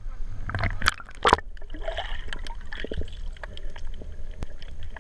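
Water splashing and sloshing against a waterproof action camera at the surface, with two loud splashes about a second in as it goes under. Then the dull, muffled rumble of the camera underwater, with scattered faint clicks.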